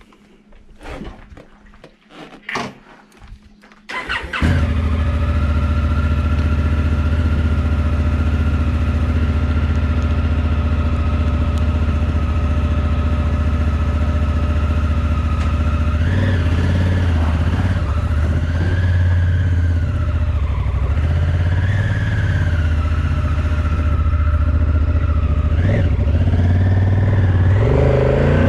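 Honda CRF1000L Africa Twin's 998 cc parallel-twin engine starting about four seconds in, after a few knocks and clatters, then idling steadily. From about halfway the engine note rises and falls as the bike pulls away and rides slowly.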